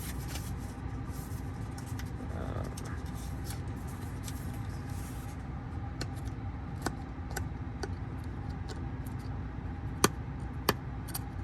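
Steady hum of the car's cabin ventilation fan, with small clicks and crinkles from the screen protector's adhesive tape being handled and peeled from its backing; two sharper clicks near the end.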